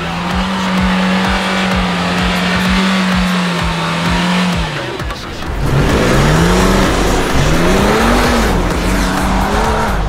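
Car engine held at steady high revs for about five seconds, then accelerating hard: the revs climb and drop several times as it shifts up through the gears.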